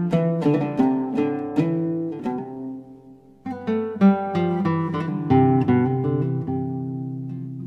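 Background music on acoustic guitar: a quick run of plucked notes, a brief lull, then a fresh strummed chord about three and a half seconds in followed by more plucked notes, the last chord ringing and fading out.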